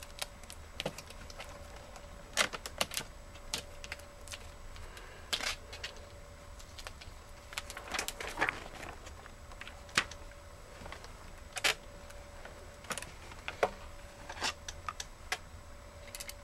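Scattered small clicks and taps, irregularly spaced, from hands handling a laptop's replacement LCD panel and lid parts. A faint steady hum runs underneath.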